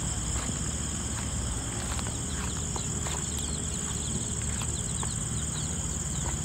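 Crickets chirring steadily in a continuous high-pitched drone, with a few faint ticks.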